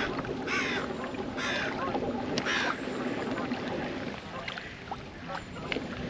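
A crow cawing three times, about a second apart, over steady water noise from the moving kayak.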